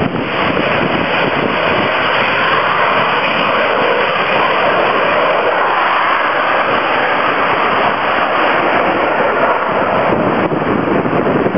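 A C-130 Hercules climbing steeply on JATO rocket bottles together with its four turboprop engines, making a loud, steady rushing noise.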